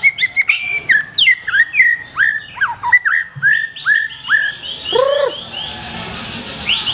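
Black-tailed murai batu (shama) singing a varied, loud run of whistled notes: quick chirps, then a row of repeated falling notes, one lower note about five seconds in, and a fast high trill near the end.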